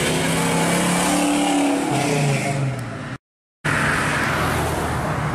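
V8 engine of a first-generation Chevrolet Camaro SS accelerating as it drives past, its pitch shifting up and down through the revs. A brief silent break comes just past three seconds, then another car's engine pulling away with a rushing noise.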